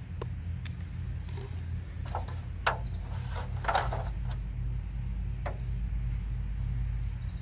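Small handling noises over a steady low rumble: light clicks and taps of a coffee stick and a stainless steel mug, the sharpest a little under three seconds in, then a brief crinkle as an aluminium foil tray is picked up.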